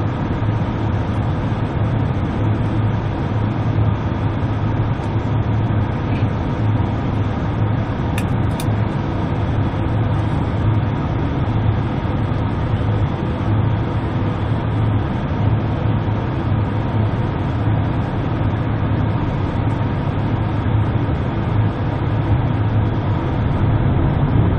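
Steady cabin noise of a jet airliner on approach to land: a low, even rumble of turbofan engines and airflow heard from a window seat beside the wing, with a faint steady tone over it.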